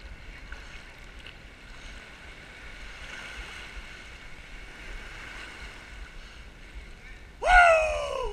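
Small sea waves washing and lapping steadily around the camera at the waterline. Near the end a person lets out one loud yell that falls in pitch.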